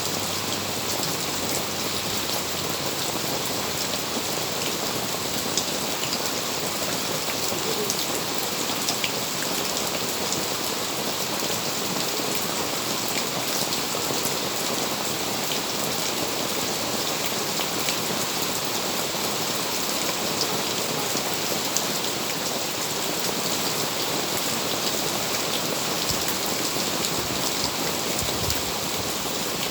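Steady rain falling, a constant hiss with many small drop ticks on surfaces.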